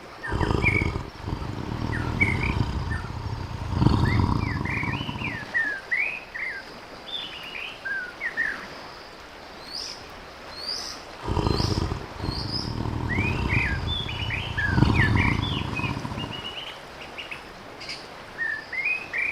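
A tiger calls twice, each a long deep call of about five seconds that swells to a louder peak near its end, the second coming about eleven seconds in. Small birds chirp steadily throughout.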